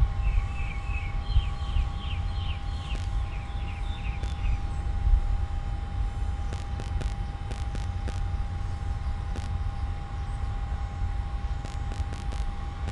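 Outdoor wind rumble on the microphone with a steady faint high whine. Over the first four seconds or so a bird chirps rapidly, about three short chirps a second.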